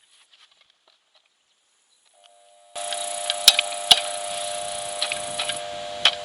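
Vikhr PN-370 surface pump switched on and humming steadily without pumping, its impeller seized by rust, with a few sharp clicks over the hum.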